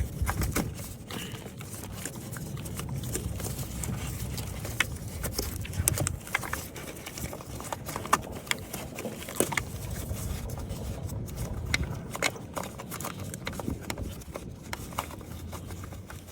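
Hands working a replacement camshaft position sensor into its bore in the cylinder head by feel: scattered small clicks, taps and scrapes of plastic and metal, irregular throughout, over a low rumble of handling noise.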